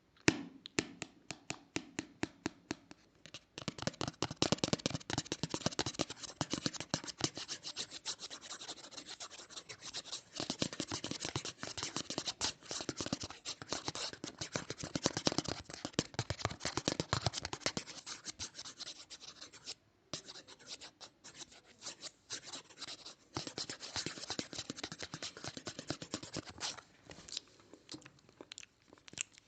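Close-up scratching, fast and continuous, after a few seconds of separate light taps at the start, with a brief pause about two-thirds of the way through.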